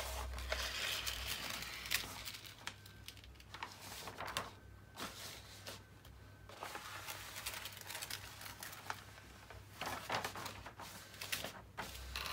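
Diamond-painting canvas cover paper being peeled off the glued canvas and handled: irregular rustling and crinkling with a few short clicks, as hands lift it and smooth the canvas.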